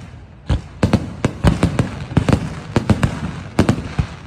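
Fireworks going off in a rapid, irregular series of sharp bangs, several a second, each with an echoing tail.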